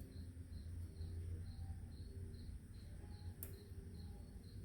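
Faint cricket chirping: a high, evenly pulsed note about two and a half times a second, over a steady low hum. A single sharp click about three and a half seconds in.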